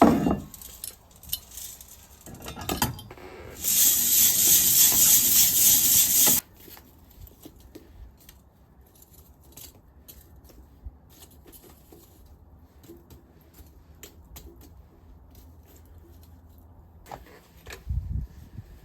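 Clinks, taps and rattles of kitchenware being handled. Partway through comes a loud, even hissing rush lasting about three seconds that cuts off abruptly, and there is a low thump near the end.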